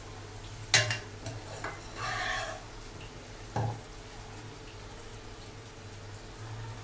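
A metal spoon knocking and scraping against a pan and plate while the cooked fish curry is served: a sharp knock about a second in, a few light clicks, a short scrape at about two seconds, and another knock a little later, over a steady low hum.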